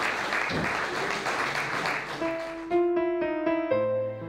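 Audience applauding, then about halfway through slow piano music comes in with a few held notes.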